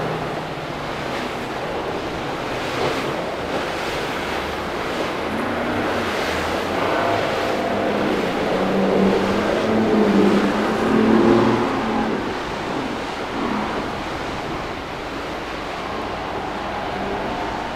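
Boat engines running through the inlet, getting louder to a peak about ten seconds in and then fading, over steady surf and wind.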